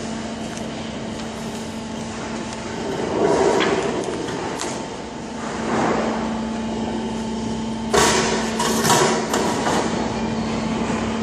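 Long folded sheet-metal profiles being carried and laid on a stack: the thin metal wobbles and rattles, then clanks sharply twice near the end as pieces knock together on the pile. A steady hum runs underneath.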